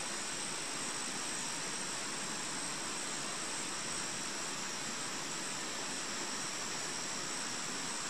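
Steady, even hiss with a thin high-pitched band on top, unchanging throughout; no heron call.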